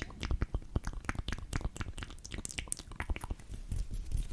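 Close, wet ASMR mouth sounds: a rapid, irregular run of sticky lip and tongue clicks and smacks.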